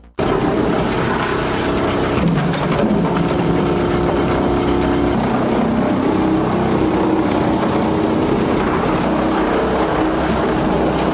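A heavy engine-driven machine running loud and steady, cutting in suddenly at the start, with its pitch dipping and recovering about two seconds in.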